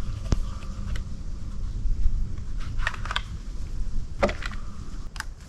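Scattered sharp clicks and light clatter of rifle cartridges and gear being handled, over a steady low rumble.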